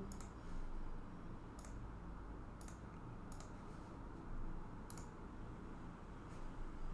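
Five or six faint, sharp computer mouse clicks, irregularly spaced, over a low steady room hum.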